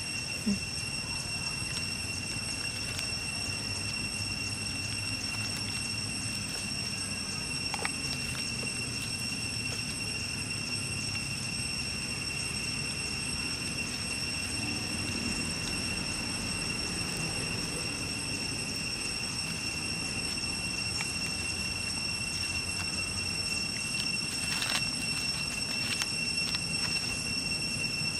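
Steady outdoor background: a constant high-pitched whine over a low rumble, with a few faint clicks near the end.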